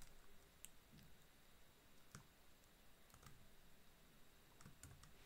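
A few faint, scattered computer keyboard key clicks against near silence.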